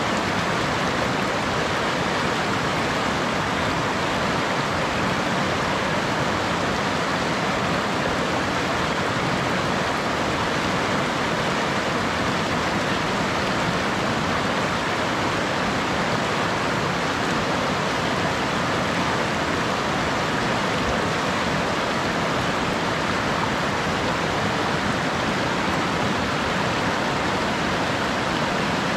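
A mountain creek running high in flood, its whitewater rapids rushing in a steady, unbroken wash of noise.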